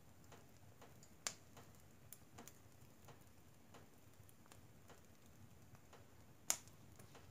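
Wood fire of logs and pine cones crackling in a stove firebox: scattered small pops and ticks over a faint hiss, with two sharp, loud snaps, one just over a second in and one near the end.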